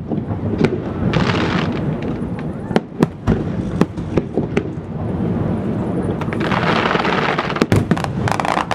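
Aerial firework shells bursting in quick succession, a dozen or more sharp bangs, with two swells of hissing crackle, about a second in and near the end.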